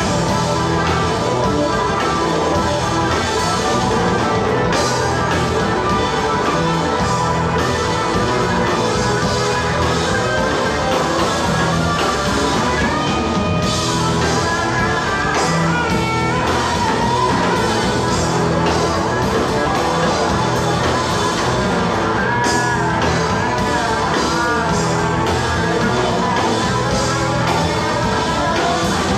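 Electric blues band playing live, with electric guitars, bass guitar and drum kit over a steady beat. A lead line bends notes in the middle and again near the end.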